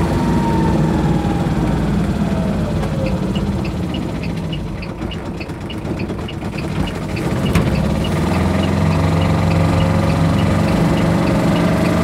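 Small 400cc Kubota two-cylinder diesel of an Aixam Mega Multitruck running, heard from inside the cab right next to the engine. The engine note falls over the first few seconds and it runs near idle as the van slows, with a light, fast regular ticking in the quieter middle part. It picks up again about two-thirds of the way through.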